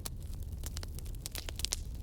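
Bonfire burning, with irregular sharp crackles and pops from the wood over a steady low rumble of the flames.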